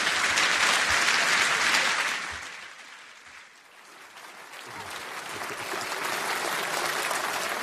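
Audience applauding. The clapping fades about halfway through, then swells back up.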